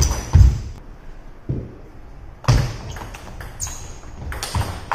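Table tennis rally: the ball clicking off the rackets and the table, with the players' feet thudding on a wooden gym floor, echoing in a large hall.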